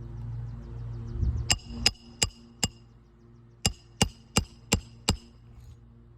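Roofing hammer driving nails into a replacement 3-tab asphalt shingle: four sharp, ringing strikes, a pause of about a second, then five more.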